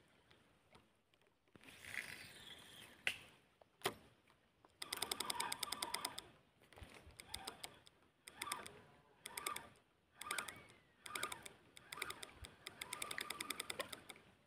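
Spinning reel being cranked in short bursts to retrieve a lure: a rapid, even clicking, about a dozen clicks a second, starting and stopping again and again from about five seconds in. Two sharp single clicks come a little before.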